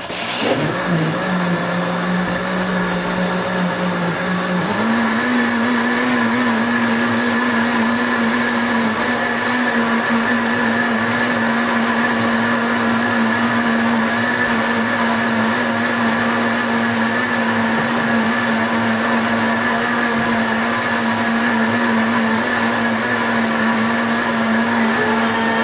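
Loud countertop blender running, mixing milk, chocolate powder, sugar and butter. The motor starts at once, its pitch steps up about five seconds in, and it then runs steadily.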